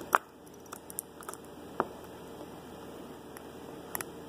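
Dental pick clicking and scraping inside the lock of an early-1900s Tower Bean handcuff as it is worked down past the pawls: a few scattered small sharp clicks, the loudest just after the start.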